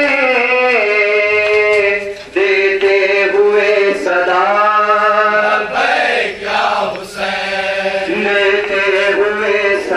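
Male voices chanting a noha, a Shia mourning lament, in long, held sung lines.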